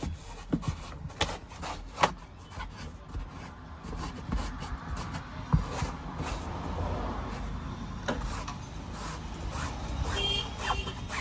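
Microfiber cloth scrubbing a car's fabric headliner, wet with diluted dishwashing liquid, as it is cleaned in place. The rubbing is uneven, with many light knocks and taps.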